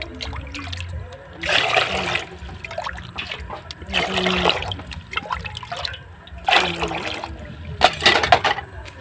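Water splashing in four short bursts, each about half a second long.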